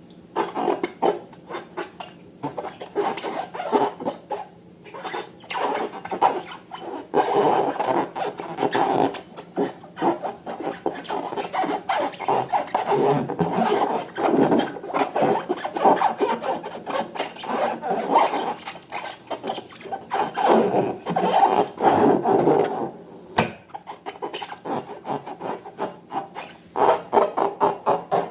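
Slime being squeezed and worked by hand: a dense, continuous run of small sticky crackles and rubbing, with brief pauses.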